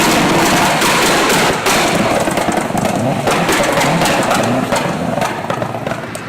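A vehicle engine revving up and down through a very loud exhaust, with rapid sharp pops and crackles throughout.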